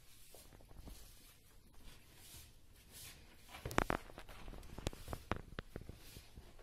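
Hand mixing and kneading a wet flour-and-water dough in a plastic bowl: faint squelching at first, then from a little past halfway a run of sharp wet slaps and taps, several a second, the loudest just before the middle.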